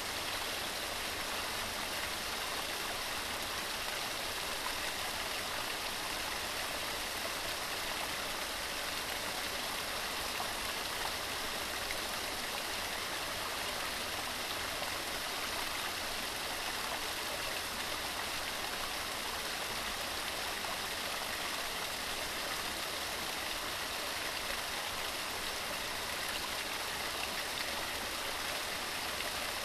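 Waterfall: a steady, even rush of falling water, mostly hiss with little low rumble.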